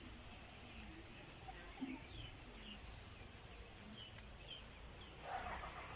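Faint outdoor ambience: small birds chirping, short falling notes every second or so, over a low steady rumble, with a brief rustling noise about five seconds in.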